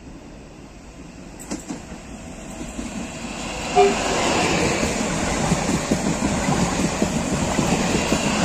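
Electric multiple-unit passenger train approaching and then passing close by at speed. Its sound grows over the first half, then settles into a loud steady rumble of wheels on rail with a clickety-clack over the rail joints. A brief tonal blip about halfway in is the loudest moment.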